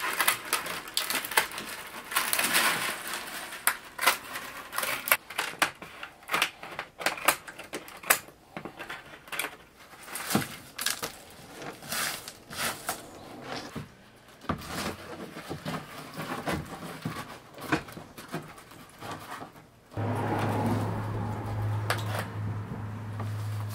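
Split bamboo strips clicking, snapping and rustling as they are trimmed with scissors and woven by hand into a twill-plaited winnowing basket, in many irregular sharp ticks. About twenty seconds in, a steady low hum starts.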